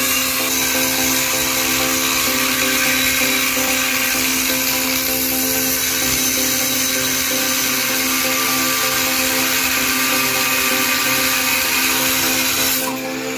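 Electric power tool running steadily under load with a high motor whine, stopping shortly before the end.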